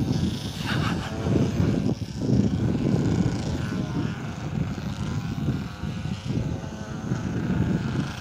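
Radio-controlled model airplane flying overhead, its motor and propeller droning, over a gusty, uneven low rumble on the microphone.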